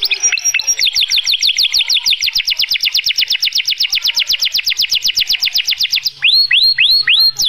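A male white domestic canary singing: a long, fast, rolling trill of about ten repeated notes a second, which near the end gives way to slower notes that each sweep upward in pitch.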